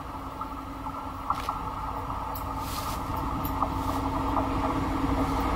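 Diesel locomotive approaching, its engine note growing steadily louder as it nears, with a steady low hum.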